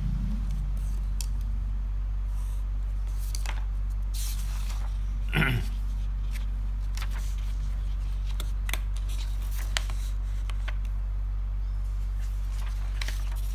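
Sheets of paper being handled on a desk: light rustles and clicks as pages are lifted and moved, over a steady low hum. One brief, louder knock comes about five and a half seconds in.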